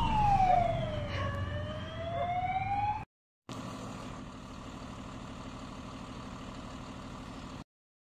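A fire engine's siren wails, its pitch falling and then slowly climbing again as the truck moves off. It cuts off suddenly, and a quieter steady hum follows: the parked fire engines running.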